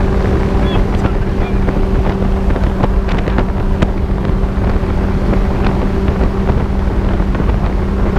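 Caterham Seven's engine droning at a steady cruise, its pitch holding level, heard from the open cockpit with heavy wind buffeting on the microphone.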